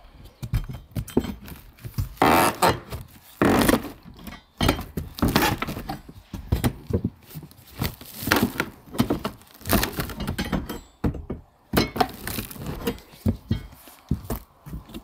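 Steel pry bar jabbing and levering under old plywood roof decking, prising the sheets up: a run of irregular thunks and knocks with a few longer scrapes, about two and three and a half seconds in.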